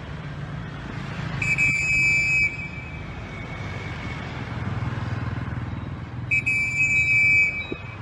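A whistle blown twice, about five seconds apart, each a steady high tone lasting about a second, calling a free-flying pet parrot back; a steady traffic hum runs underneath.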